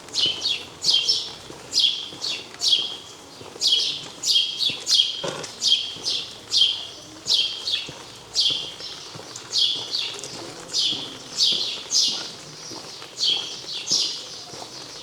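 A bird calling repeatedly: a quick series of short, falling chirps, two or three a second, running on without a break. There is a single knock about five seconds in.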